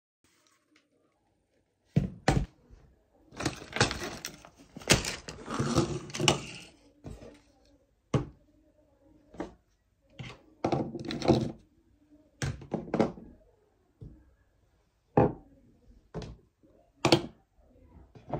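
Knocks, thuds and clatter of objects being handled and set down on a wooden desk, starting about two seconds in, busiest in the first half, then single taps and knocks every second or so.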